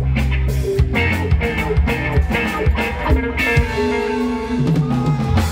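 Live rock band playing: electric guitars over a steady bass line and drums, with regular cymbal hits.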